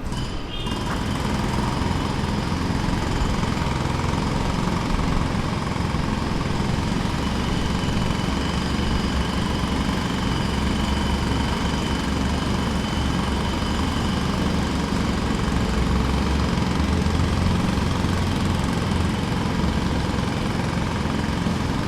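Distant pneumatic jackhammer breaking into the ground, a continuous rapid rattle that picks up about half a second in and then runs steadily.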